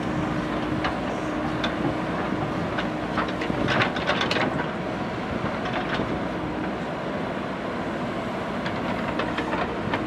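JCB 3DX backhoe loader's diesel engine running steadily under digging load, with a few metallic knocks and clanks from the backhoe arm and bucket, the loudest cluster about four seconds in.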